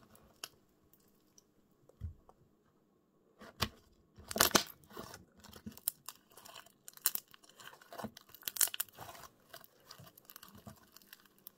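Homemade glue slime being kneaded and squeezed by hand, giving off irregular clicks and crackles. It is quiet at first, with the clicks starting about three and a half seconds in and the loudest cluster soon after.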